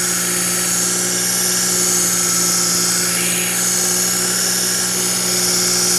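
Work Sharp belt knife sharpener running steadily, its motor humming while the abrasive belt grinds along a kitchen knife's edge with a high hiss, taking metal off at a 25-degree angle.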